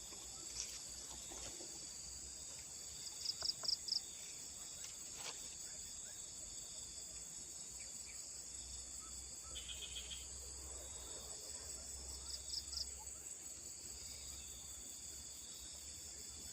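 Insects chirping: a steady high-pitched drone, with short trains of rapid pulsed chirps a few times.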